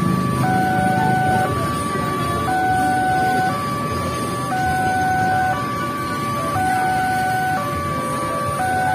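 Railway level-crossing warning alarm sounding a steady electronic two-note chime that alternates about once a second, over the rumble of a passenger train running past on the tracks.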